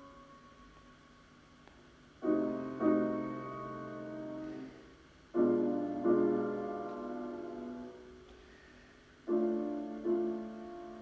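Solo piano playing slow classical ballet accompaniment: three phrases, each opening with two struck chords that ring on and fade, about three seconds apart, after a quiet pause of about two seconds.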